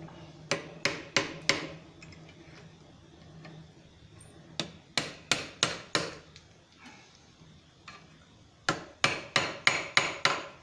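Hand hammer striking a red-hot forged knot of quarter-inch round steel rod held loosely in a vise, driving the rod to squeeze the slack out of the knot. The blows come in three runs of four to six strokes, about three a second.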